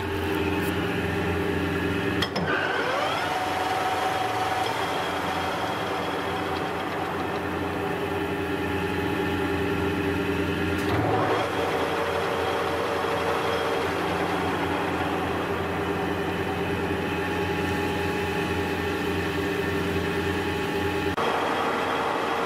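EX-CELL-O DLZ 500 SL centre lathe running with its spindle and chuck turning: a steady geared whine over a hum. The sound shifts abruptly with brief gliding tones about two seconds in, changes again about eleven seconds in, and once more near the end.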